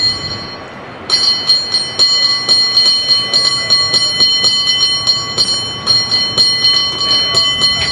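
A cable car bell rung by hand in a quick rhythm, several strikes a second, starting about a second in. Each strike leaves the bell ringing.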